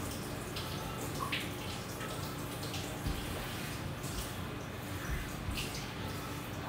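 Water running and splashing in a kitchen sink during hand dishwashing, with a few short light clinks of dishware.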